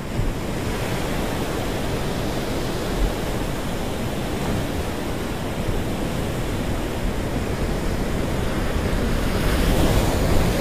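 Ocean surf breaking on a beach: a steady wash of waves, with a brief low thump about three seconds in and a swell growing louder near the end.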